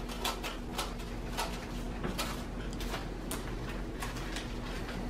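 Scissors cutting open a paper envelope: a run of short snips and paper rustles at irregular intervals, over a faint steady hum.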